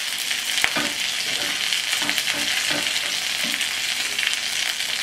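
Chipotle-marinated chicken sizzling steadily in hot oil in a nonstick grill pan as it crisps up, with one sharp click of metal tongs on the pan just over half a second in.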